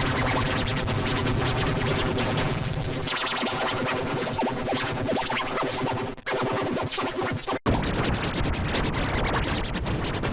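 Heavily distorted, effects-processed cartoon audio that comes out as dense, scratchy, electronic-sounding noise, with two brief dropouts about six and seven and a half seconds in.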